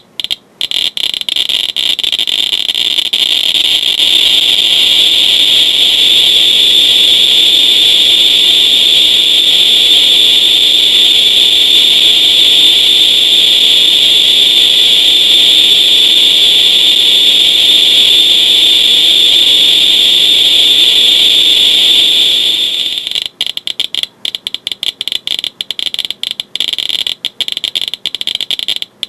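Geiger counter (Radiation Alert Inspector EXP with pancake probe) clicking at the radium paint of an old luminous watch dial. The clicks come so fast, around 59,000 counts per minute, that they merge into a continuous high buzz. About 22 seconds in the rate drops back to distinct rapid clicks.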